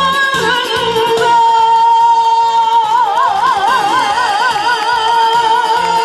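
A woman sings into a microphone through a PA over a backing track with a steady beat. She holds one long note, which breaks into a wide vibrato about halfway through.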